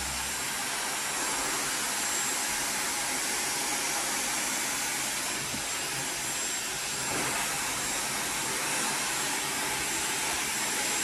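Dyson Supersonic hair dryer running steadily, drying wet hair over a round brush: an even rushing of air with a thin, high, steady whine above it.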